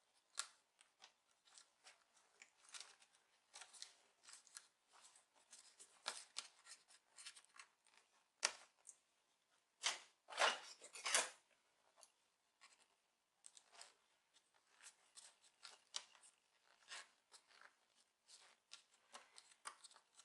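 Faint, scattered clicks, taps and rustles of hands fitting a laptop's display cable into its groove and handling the new screen panel, with a louder patch of rustling and clicking about ten seconds in.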